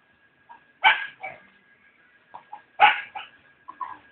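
A dog barking: several short, sharp barks, mostly in pairs.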